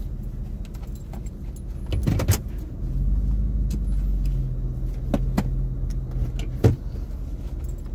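Chevrolet Silverado pickup's engine running steadily at low speed, its low hum picking up slightly about three seconds in. A few sharp clicks and knocks stand out over it, the loudest about two seconds in and near the end.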